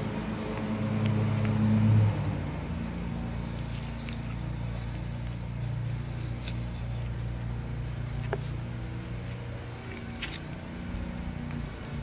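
A steady low motor hum, louder for the first two seconds and then even, with a few faint clicks over it.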